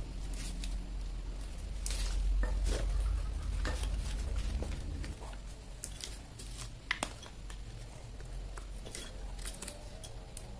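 Dried areca nuts and husks clicking and rattling against wood and metal as they are handled and fed by hand into a hand-cranked areca nut peeler: scattered sharp clicks, one louder about seven seconds in, over a low rumble.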